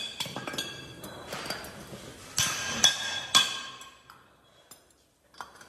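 Cast aluminium wheel hubs clinking and ringing as they are knocked and handled against each other and a metal tool. There are light clinks first, then three sharp ringing metallic strikes around the middle, and it goes almost silent near the end.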